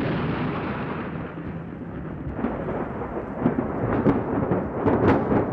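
Thunder rumbling on, with a few sharper cracks about four and five seconds in.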